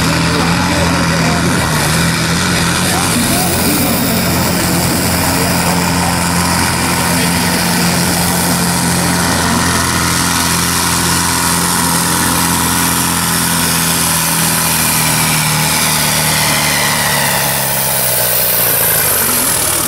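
Diesel engine of a sport-class pulling tractor running steadily, then opened up near the end as the pull begins, its pitch rising while it pours black smoke.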